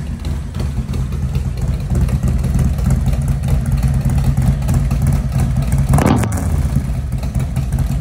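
Harley-Davidson Road King's Milwaukee-Eight V-twin with a 468 Zippers cam, breathing through a D&D Billet Cat 2-into-1 exhaust with the Vortex baffle, idling steadily. A short throttle blip comes about six seconds in.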